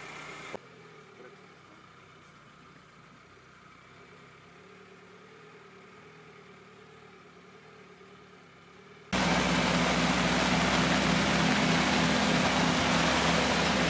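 Karakat all-terrain vehicle's engine running. It is faint at first, then cuts in loud and close about nine seconds in, a steady drone over rushing noise as the vehicle drives on.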